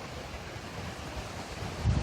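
Storm wind during a severe windstorm: a steady rushing noise with no distinct tones, and a brief low gust buffeting the microphone near the end.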